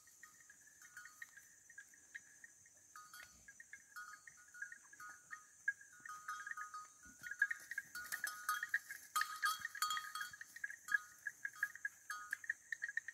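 Bells hung on grazing cattle clanking irregularly as the animals move: a busy run of small ringing metallic clinks that grows louder and thicker about halfway through.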